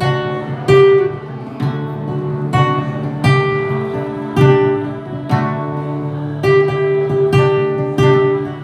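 Acoustic guitar strumming chords, struck about once a second, with the notes ringing on between strokes.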